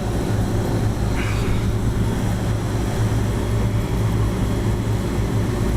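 Steady low mechanical hum of rooftop air-conditioning equipment running.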